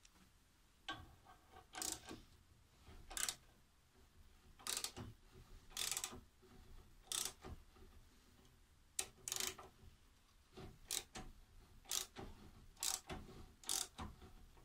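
Homemade metal lathe's carriage and cross slide being worked by hand: a series of short metallic scrapes and clicks, roughly one a second and unevenly spaced, some with a brief ringing.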